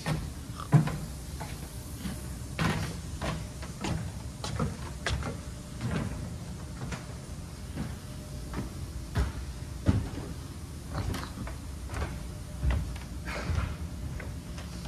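Footsteps on wooden stairs and decking: people climbing a timber staircase and walking across the boat mock-up, irregular thuds and knocks, over a steady low hum.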